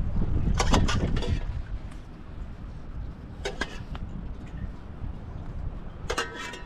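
Sharp, scattered clinks and knocks of hard objects. First a spoon against a metal pot, a quick cluster of clicks about a second in; then single knocks a few seconds apart as stones are set into mud. Low wind rumble on the microphone at the start.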